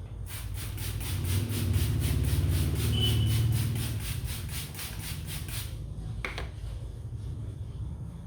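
Rapid, even tapping of hands on a head during a head massage, about five strikes a second for some five seconds, over a low rumble. A single click follows about six seconds in.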